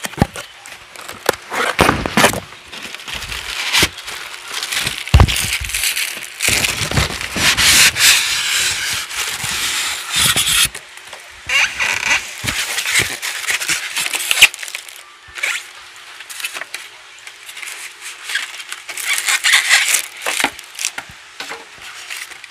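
Unboxing noise: cardboard box flaps and styrofoam packing rubbing and scraping, with plastic wrap crinkling and a few knocks, as an electric grill is slid out of its packaging. It comes in irregular bursts, busiest in the first half.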